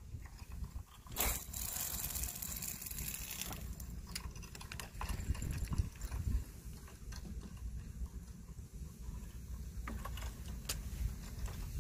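Low rumble of wind on the microphone, with scattered clicks and knocks and a short burst of hiss about a second in.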